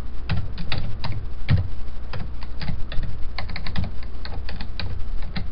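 Computer keyboard being typed on: quick, irregular key clicks.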